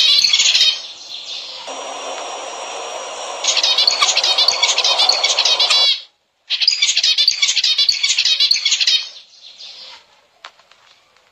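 Zebra finches chirping in loud bursts of rapid, dense notes, with quieter chatter between. The sound cuts out briefly about six seconds in and dies away near the end.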